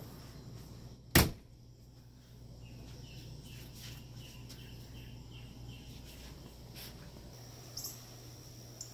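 Quiet outdoor ambience with a faint steady low hum and faint chirping, about two chirps a second. A single sharp knock about a second in is the loudest sound.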